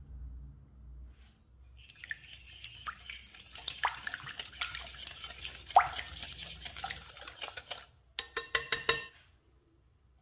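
Wire whisk beating egg, sugar and oil in a glass bowl: fast, scratchy clinking of the wires against the glass. About eight seconds in, this gives way to a quick run of sharp clinks lasting about a second.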